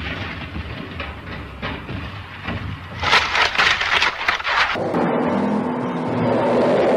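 A car tumbling down a brushy hillside: a run of crashing, crunching impacts, loudest from about three to four and a half seconds in. About five seconds in this cuts to a vehicle engine running with a steady pitched note.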